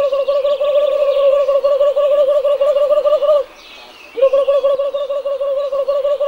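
A priest's long, warbling high-pitched call to summon the turtles of the temple pond. It is held steadily, breaks off for under a second a little past halfway, then starts again. Birds chirp faintly in the background.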